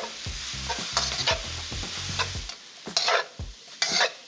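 Chow mein noodles stir-frying in a hot wok with the sauce just added: a sizzle that thins out about halfway, broken by scraping strokes against the wok as the noodles are tossed, about one a second.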